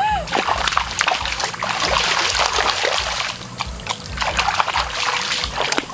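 Water splashing and trickling, mixed with scattered clicks and rustles.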